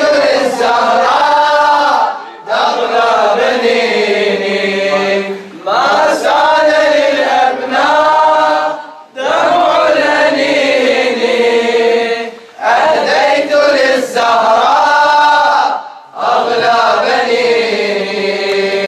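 Male voices chanting an Arabic Shia mourning elegy (latmiyya) in long sung phrases, each about three seconds long with a short breath between them, six in all.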